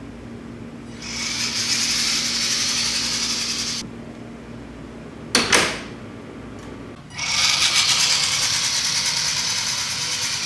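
Vaterra Slickrock RC rock crawler's electric motor and gear drive whirring as it drives across a tile floor, in two runs of a few seconds each. About five seconds in, between the runs, there is a short sharp sound that drops in pitch.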